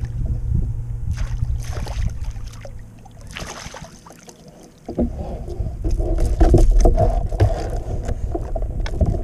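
Kayak paddle splashing in the water in several strokes as the kayak is paddled in reverse. About five seconds in, a louder steady rushing noise with a low rumble takes over.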